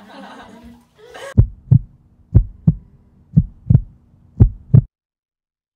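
Heartbeat sound effect: four low double thumps (lub-dub), about one a second, starting about a second and a half in.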